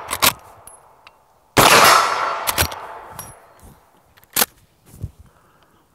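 Henry All-Weather lever-action rifle in .44 Magnum firing one loud shot about one and a half seconds in, which echoes away over the next second or two. Sharp metallic clicks of the lever being worked to cycle a fresh round come just before the shot and again after it.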